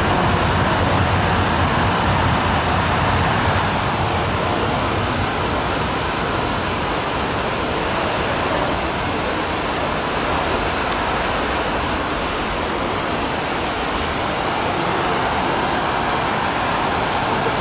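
Steady hum of an underground metro platform, ventilation and distant crowd noise, with the low rumble of a departing train fading over the first few seconds.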